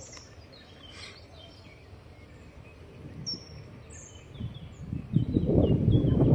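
Small birds chirping: short, falling chirps in quick series. From about five seconds in, a loud, irregular low rumble of wind buffeting the microphone comes up and becomes the loudest sound.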